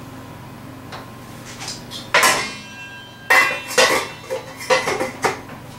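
Metal pots and lids clanking as they are handled at the stove. There is one loud clang about two seconds in that rings on briefly, then a quick run of shorter clanks.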